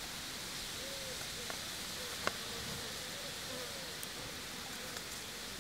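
Pondside ambience: a steady high hiss, with faint short rising-and-falling calls repeating in the background. A sharp click a little over two seconds in, and a few lighter ticks, come as monofilament line and a sinker rig are handled.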